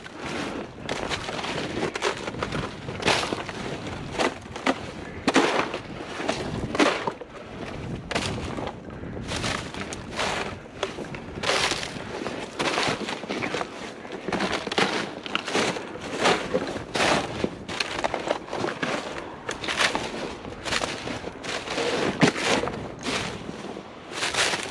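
A person walking steadily, about one to two heavy steps a second.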